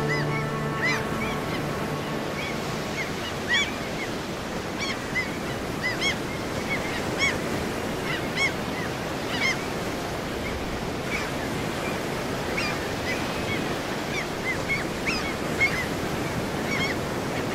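Ocean surf breaking steadily on a sandy beach, with short chirping bird calls repeating over it. Music fades out about a second in.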